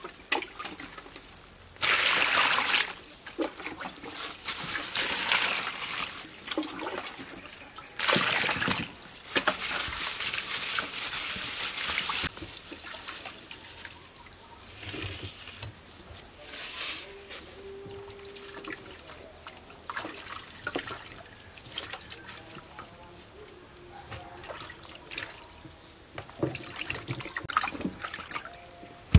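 Water poured from a small container into a steel bowl and sloshed as vegetables are washed by hand: a short pour about 2 seconds in, a longer one of about four seconds, then smaller splashes and trickles.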